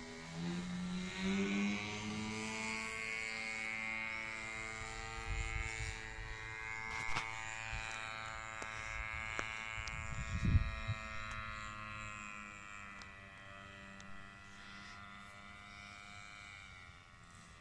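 Small propeller engine of a Demoiselle aircraft revving up over the first few seconds, then running steadily at high revs, its pitch easing down near the end. Two low rumbling bursts come around the middle, the second the loudest moment.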